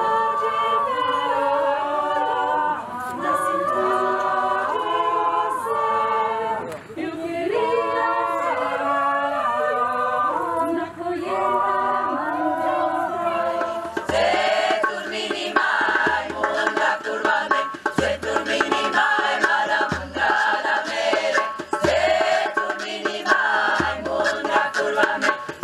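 Mixed choir singing a cappella in several-part harmony, holding long chords. About halfway through the singing turns rhythmic and a hand drum comes in with a low beat roughly every two seconds, along with sharper strikes.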